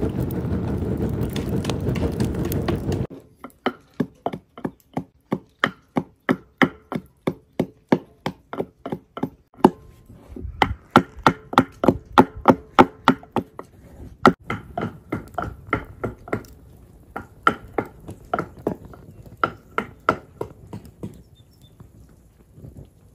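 For about three seconds a wood fire burns loudly with crackling. Then a wooden pestle pounds in a wooden mortar: steady, hollow knocks at about two to three strokes a second, stopping a couple of seconds before the end.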